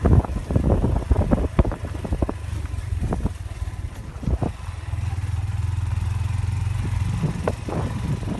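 A vehicle driving over a rough, rocky dirt road: a low engine rumble broken by repeated knocks and rattles from the bumps. For a few seconds past the middle the run is smoother and the engine hum steadier.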